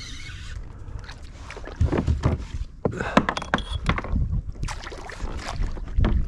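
Irregular knocks and splashing at the side of a kayak as a large snook is fought to the hull and netted, over a low rumble of wind on the microphone.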